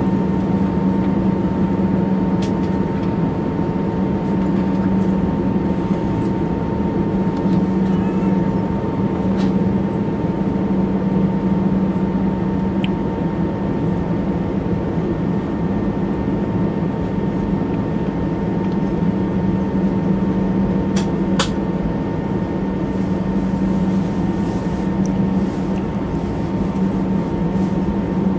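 Steady cabin noise of an Airbus airliner on the ground: a low drone with a thin, unchanging whine above it, and a few faint clicks.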